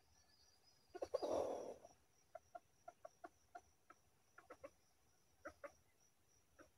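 Red junglefowl rooster clucking softly: a louder, rougher burst about a second in, then a loose string of short clucks, unevenly spaced, until near the end. No crowing.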